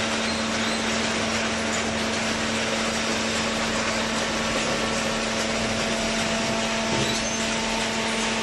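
Hydraulic baler's electric motor and pump running steadily: a constant hum under a wide hiss of machine noise.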